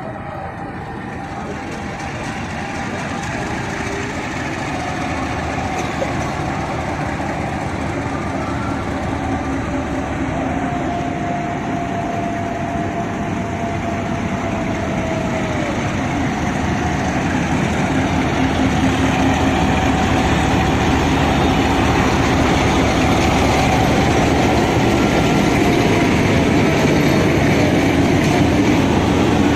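A diesel-hauled passenger train drawing closer, its rumble and wheel noise growing steadily louder, with thin squealing tones from the wheels on the rails sliding in pitch.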